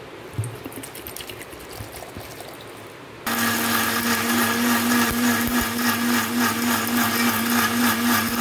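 Electric kitchen mixer grinder starting about three seconds in and running steadily, grinding grated coconut, green and dry red chilies, black pepper and coriander seed with a little water into a paste. Before it starts, a few small knocks as the jar is handled.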